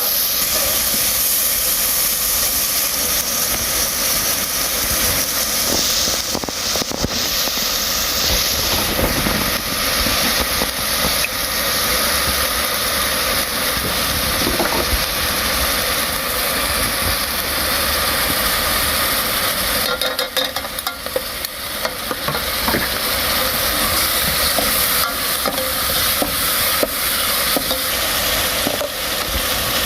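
Food sizzling as it fries over heat: a steady hiss with scattered crackles and clicks.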